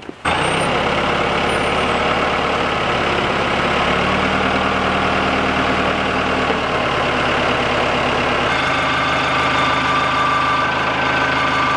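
SkyTrak 8042 telehandler's diesel engine running steadily while its boom lowers a bundle of metal roof sheets. A higher steady whine joins about eight and a half seconds in.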